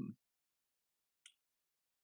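Near silence: a pause between words, with one faint, brief tick about a second in.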